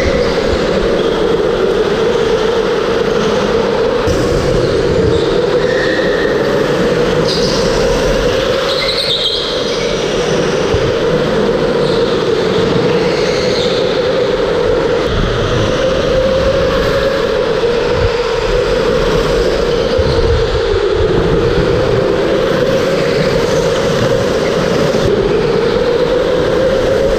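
Electric go-kart motor running under way with a steady whine that drifts up and down in pitch as the kart speeds up and slows through the corners, over a rush of tyre and road noise.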